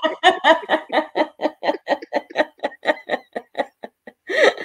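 A person laughing hard in a long run of short rhythmic ha-ha pulses, about five a second, dying down near the end.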